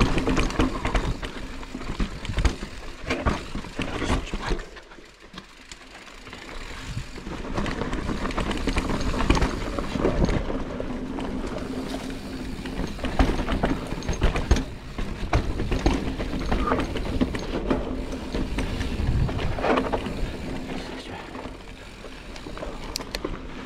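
Giant Reign 29 full-suspension mountain bike rolling down rocky dirt singletrack: tyres crunching over dirt and stones, with a constant clatter of sharp knocks and rattles from the frame, chain and suspension over a low rumble. The clatter eases briefly about five seconds in.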